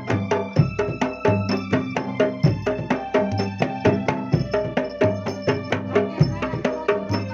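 Jidor ensemble music for pencak silat. A big jidor bass drum booms about every two seconds under fast, busy drum and tapping strokes, with a repeating pitched melody running over the rhythm.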